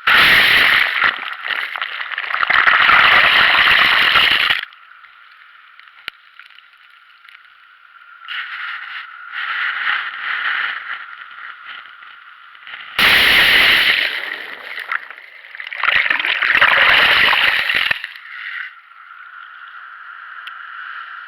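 Sea water sloshing and splashing in four loud spells, over a steady high hiss.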